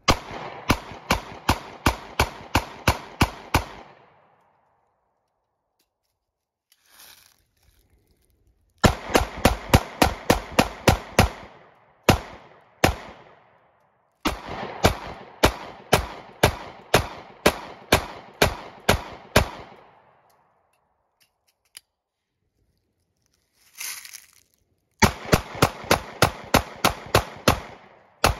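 Taurus GX4 9mm micro-compact pistol fired in quick strings of shots, about three a second, four strings in all with short pauses between them.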